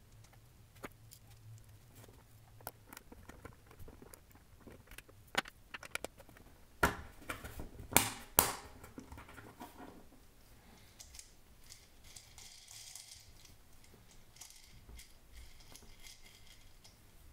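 Small clicks and clinks of steel balls and printed plastic as the cage is pressed into a 3D-printed deep groove ball bearing, with a few sharper clicks about halfway through. In the second half there is a faint high hiss as the assembled bearing is handled and turned.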